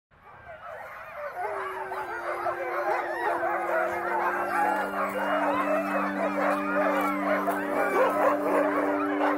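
A chorus of many Alaskan huskies howling and yipping together, fading in from silence and growing louder. Low steady tones come in underneath one after another.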